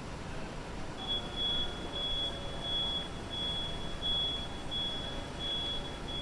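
Street traffic noise with a high electronic beep that starts about a second in and repeats steadily, about three beeps every two seconds.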